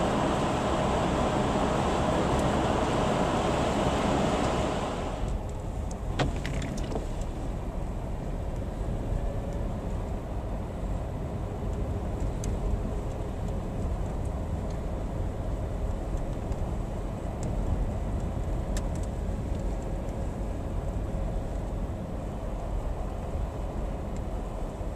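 Car driving on a snowy road: a loud hiss of road and tyre noise drops away suddenly about five seconds in, leaving a steady low rumble with a few faint clicks.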